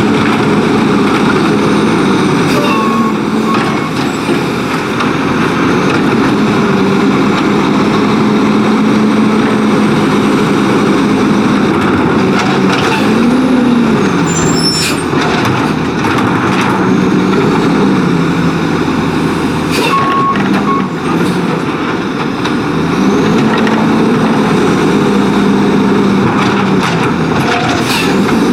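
Autocar WX garbage truck's diesel engine revving in gear, its pitch rising and falling several times over steady running, with a few short air-brake hisses.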